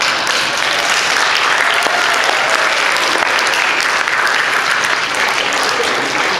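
Audience applauding in a hall, a dense steady clapping that starts suddenly and keeps up throughout.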